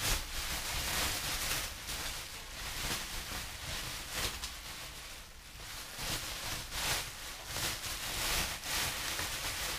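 Plastic bubble wrap rustling and crinkling unevenly as hands pull a bicycle frame out of it.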